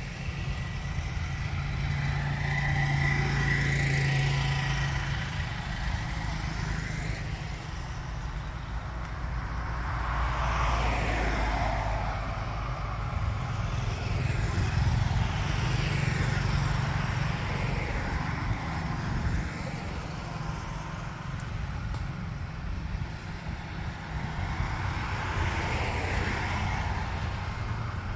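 Passing road traffic: several vehicles go by one after another, each swelling and fading over a steady low rumble.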